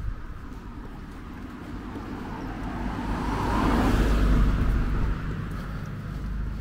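A car passing by on the road, its tyre and engine noise swelling to a peak about four seconds in and then fading away.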